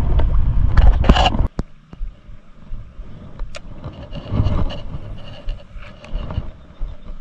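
Wind buffeting the microphone and handling noise, with a short loud burst of noise about a second in. After that it is quieter, with scattered clicks and rustles as a fishing rod, its line and lure are handled.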